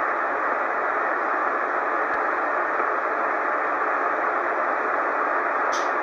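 Steady shortwave band noise from a Tecsun PL-990x receiver in LSB mode on the 40-metre band: an even hiss held to the narrow single-sideband audio range, with no station on frequency. A brief faint high tick near the end.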